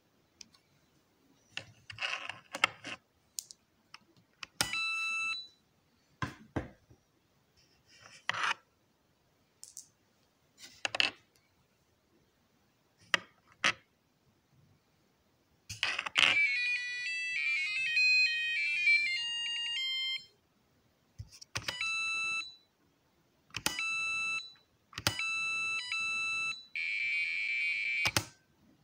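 Marbles knocking sharply on a homemade electronic Japanese billiard (bagatelle) board, about a dozen knocks spread over the first half. The game's Arduino-driven buzzer gives a single beep, then plays a rapid electronic jingle lasting about four seconds around the middle. Near the end it gives several separate beeps and a longer buzz.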